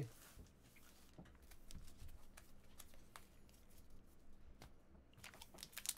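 Near silence with faint soft clicks and rustles of trading cards being handled, growing into louder crinkling near the end.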